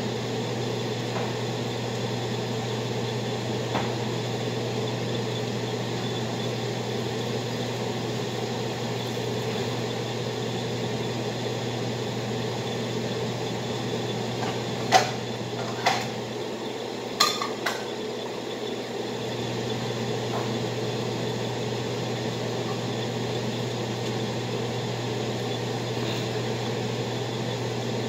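Dishes and a cabinet door clinking and clicking: four or five sharp knocks about halfway through, over a steady low kitchen hum.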